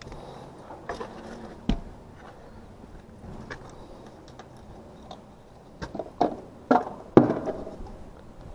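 Scattered clicks and knocks of hand work on an AC condenser's wiring and a replacement run capacitor, with a cluster of louder knocks about six to seven seconds in.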